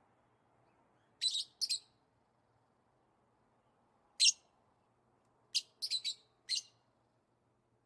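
Lovebirds giving short, sharp, high-pitched chirps in scattered bursts: two about a second in, one near the middle, and a quick run of four about two-thirds of the way through. A faint steady low hum lies underneath.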